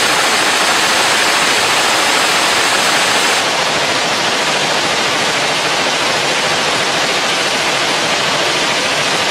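Suppressed belt-fed light machine gun firing one long continuous full-auto burst, the shots running together into a steady, unbroken noise. The sustained fire is overheating and destroying the suppressor, which glows red-hot. The tone shifts slightly about three and a half seconds in.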